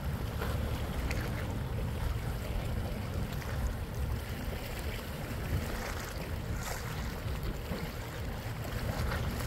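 A yacht under way: a steady low rumble with a hiss of water wash over it, and wind buffeting the microphone.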